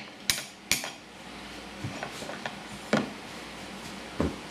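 Spoons and dishes clinking: two sharp clinks in the first second, then a few scattered lighter clinks and knocks.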